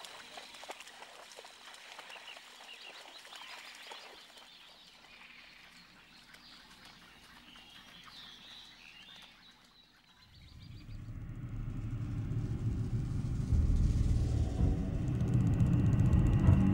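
Faint marsh ambience with small birds chirping. After about ten seconds a deep low rumble swells up and becomes loud near the end.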